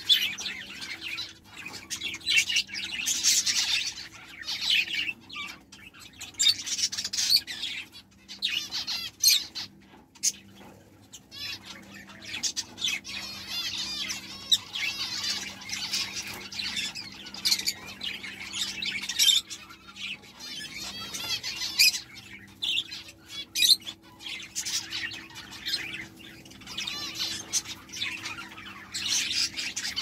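Finches calling in repeated bursts of high-pitched chirping, with a faint steady low hum underneath.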